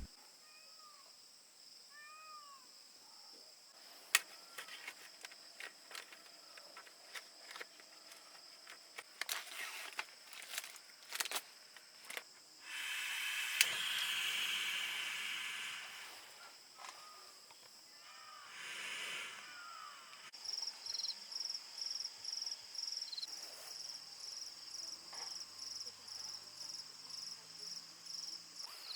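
Night insects, crickets most likely, trilling steadily at a high pitch, breaking into regular chirps about two or three a second in the second half. Scattered small clicks and knocks come in the first half, and a few seconds of hiss about halfway through.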